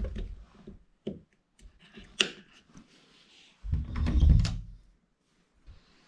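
Several short sharp knocks, then a heavier, longer low thud about four seconds in, like household knocking and handling in a small room.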